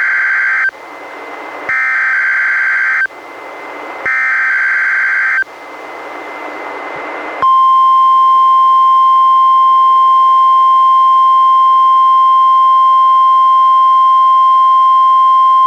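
NOAA Weather Radio Required Weekly Test heard on a weather radio receiver: three SAME digital header bursts, each a harsh warbling screech of about a second, with receiver hiss between them. About seven seconds in, the steady single-pitch 1050 Hz warning alarm tone begins.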